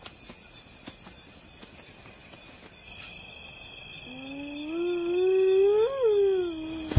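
A spotted hyena's whoop: one long call starting about four seconds in, rising slowly in pitch, peaking and then dropping again.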